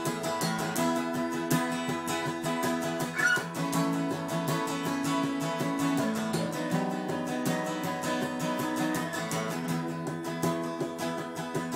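Two acoustic guitars strummed together, playing a steady rhythm of sustained chords.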